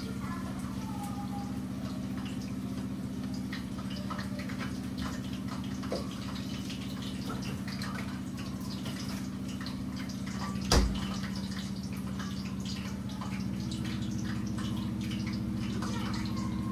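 Bhajias deep-frying in a pot of hot oil: scattered crackling and popping over a steady low hum, with a single sharp thump about eleven seconds in.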